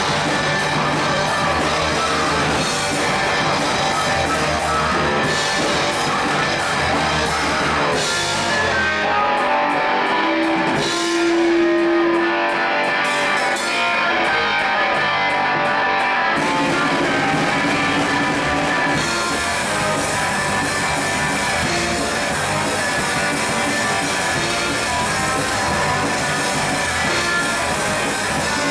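Live rock band playing: electric guitar, electric bass, drum kit and baritone saxophone. Partway through, the cymbals drop back for a quieter stretch with long held notes, then the full band comes back in.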